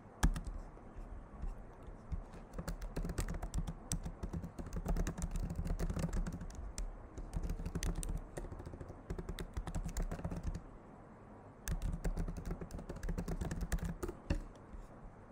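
Typing on a computer keyboard: quick, irregular keystrokes, pausing for about a second about two-thirds of the way through, then a second run of keystrokes.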